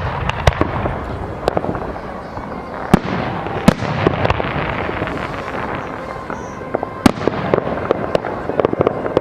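Aerial fireworks display: repeated sharp bangs of bursting shells, the loudest about three, three and a half and seven seconds in, over dense crackling.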